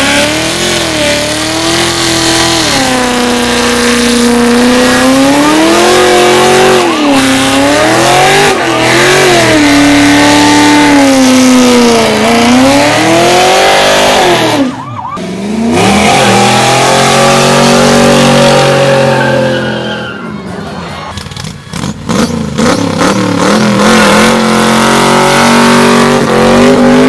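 Car engines revving hard during tyre-spinning burnouts. For about half the time one engine's pitch swings up and down in waves. After a sudden break, other engines rev higher and steadier, and near the end a Cobra-style roadster is revving as it spins its rear tyres.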